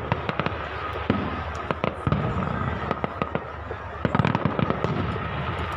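Aerial fireworks shells bursting in a rapid string of sharp bangs and crackles, growing denser about four seconds in.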